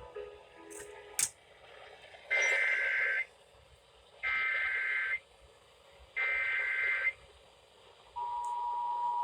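Emergency Alert System SAME header: three data bursts of about a second each, about two seconds apart, with a screechy warbling sound. The steady two-tone EAS attention signal starts near the end. A sharp click is heard about a second in.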